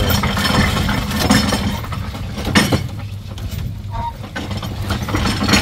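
Engine idling steadily, with a couple of sharp metallic knocks and clinks.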